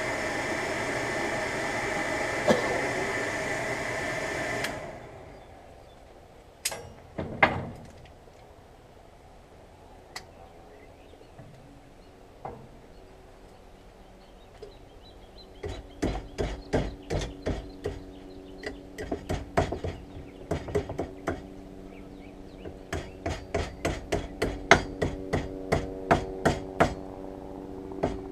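A forge blower runs steadily and cuts off about five seconds in. After a couple of knocks, a hand hammer strikes hot steel against round stock in runs of quick blows, about three a second, with a ringing tone under them, forming the curve of a spoon knife blade.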